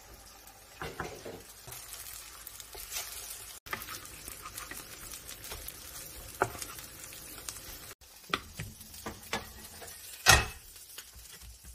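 Egg-battered sea bass fillets sizzling in oil in a nonstick frying pan, with scrapes and taps of a wooden spatula turning them, and a sharp knock near the end.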